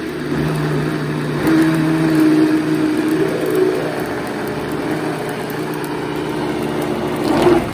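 Vitamix blender motor running at speed, a steady whir with its pitch wavering slightly as it blends a thick smoothie of fruit, spinach and yogurt.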